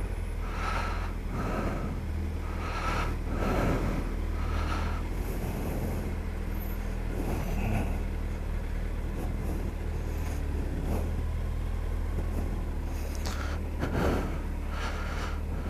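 Suzuki B-King's inline-four engine running at low speed as the motorcycle crawls between queued cars, a steady low hum with a few brief swells in loudness.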